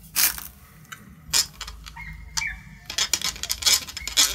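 A paintbrush stirring acrylic paint and water in a drinking glass, clinking and ticking against the glass. There are a few scattered clinks at first, then rapid clinking from about three seconds in.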